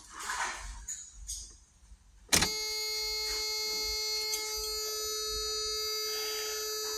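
After some rustling, a click about two and a half seconds in, then the Toyota T100's dashboard warning buzzer sounds one steady, unbroken electronic tone as the ignition is switched on.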